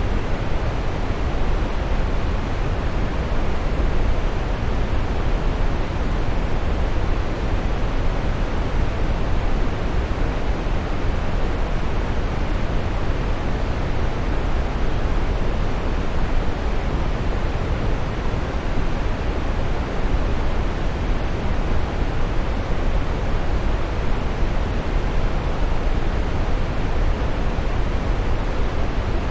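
Waterfall: water falling and splashing in a steady, unbroken rush, deepest in the low end.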